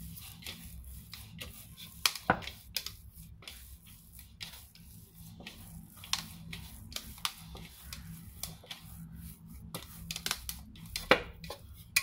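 Hands kneading soft bread dough in a bowl: irregular slaps, squelches and clicks as the dough is pressed and folded, over a low steady hum.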